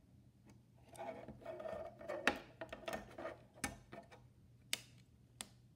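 A mini RC car and its clear plastic case being handled on a wooden tabletop: soft rubbing and scraping, then four sharp plastic clicks, the clearest about three and a half and just under five seconds in.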